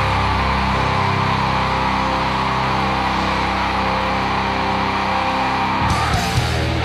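Live heavy rock band playing loud: distorted electric guitars, electric bass and a drum kit. A dense, held wall of guitar and cymbal sound breaks near the end into a few drum hits.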